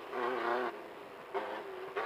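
Class 1500 desert race car's engine running hard, heard on board. About two-thirds of a second in, the throttle lifts and the note drops away abruptly. About a second and a half in, the engine comes back on at a lower pitch.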